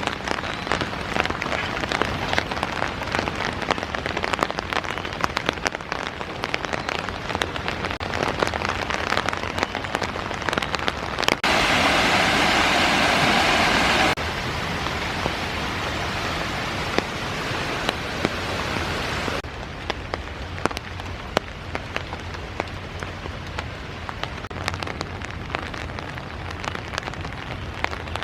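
Rain falling steadily, with many individual drops pattering. A louder, steadier rush of water about twelve seconds in lasts nearly three seconds, and the rain is quieter for the last part.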